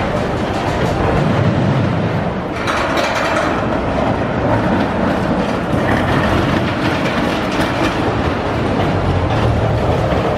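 Small steel roller coaster train (an E&F Miler coaster) running along its track: a steady rumble and clatter of wheels on steel rail, growing brighter about two and a half seconds in.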